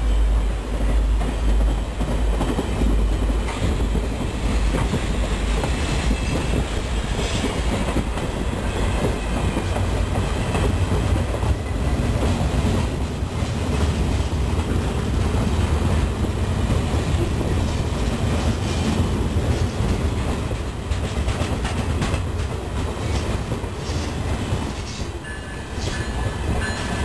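Freight hopper cars of a stone (ballast) work train rolling steadily past: a continuous rumble with wheels clacking over the rail joints.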